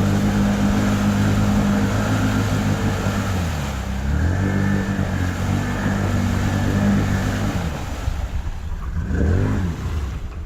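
ATV engine held at high revs, dipping briefly about four seconds in, then dropping away after about eight seconds, with one short rev rising and falling near the end.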